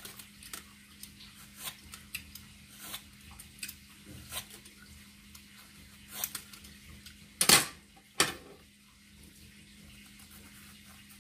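Vegetable peeler scraping strips of skin off a green mango in short repeated strokes, about one every half second to second. Two much louder scrapes come just past the middle, with a faint steady hum underneath.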